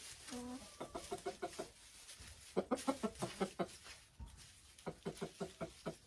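Wyandotte chickens clucking: a short drawn-out note near the start, then three quick runs of rapid clucks, about eight a second.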